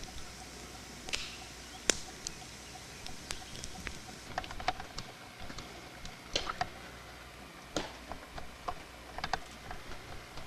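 Wood campfire crackling: irregular sharp pops and snaps, a few every second, some louder than others, over a soft steady hiss.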